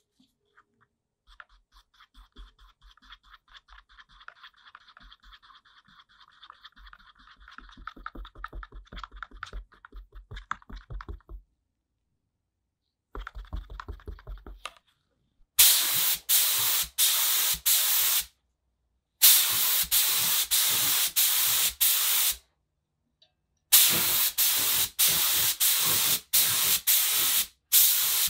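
A wooden stir stick scraping round a paper cup as paint is mixed, a quick run of light ticks. Then a gravity-feed air spray gun spraying paint in short hissing blasts, in three runs with brief pauses between, much louder than the stirring.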